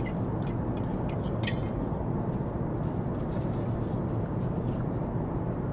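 Steady low rumble of a jet airliner's cabin in flight, with a few faint ticks in the first second and a half.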